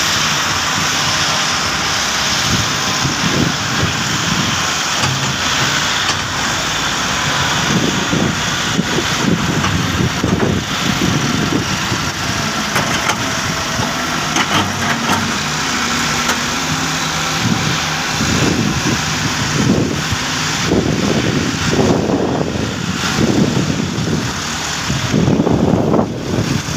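Doosan excavators' diesel engines running while the machines work: a steady engine noise with irregular louder surges and scattered knocks.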